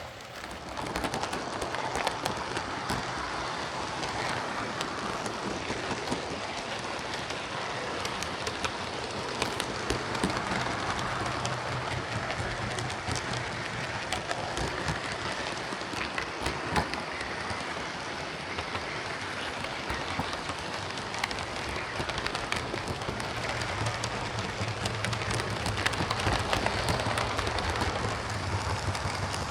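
Lima OO gauge Class 37 model diesel locomotive, converted to a CD motor, running on layout track: a steady motor whirring with the wheels rattling and clicking over the rails. It gets louder about a second in.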